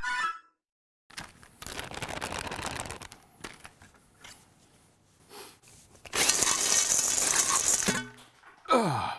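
Cordless drill with a whisk attachment spinning in a steel mixing bowl of flour for about two seconds, a dense whirring rush that stops suddenly. Earlier there is a stretch of softer rustling, and near the end a short sound that falls steeply in pitch.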